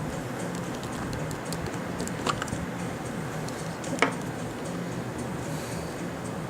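Light clicks and rustling of a trading-card box and its packaging being handled and opened, over a steady low hum. Two sharper clicks stand out, about two and four seconds in.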